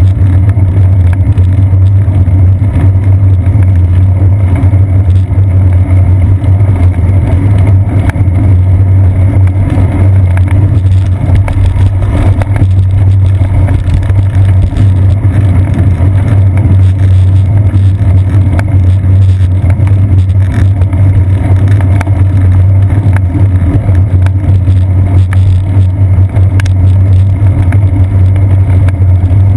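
Loud, steady low rumble of wind buffeting and road vibration picked up by a seat-post-mounted GoPro Hero 2 on a bicycle being ridden along a wet paved path. It does not let up.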